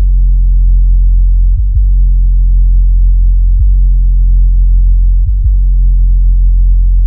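Deep sub-bass tone of a music track on its own, with no drums or anything higher; it shifts slightly about every two seconds before a drum kit comes back in at the very end.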